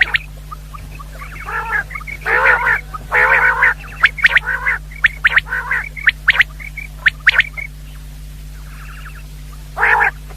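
Common quail calling in an irregular series of short, sharp whistled notes mixed with longer harsh, rasping notes. A steady low electrical hum runs underneath.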